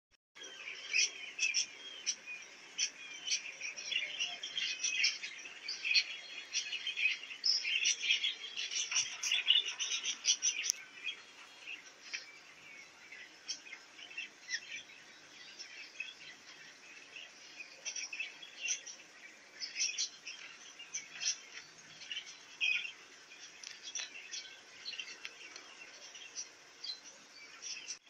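Cockatiels chirping in a cage, many short calls overlapping, busiest over the first ten seconds or so and thinning out after.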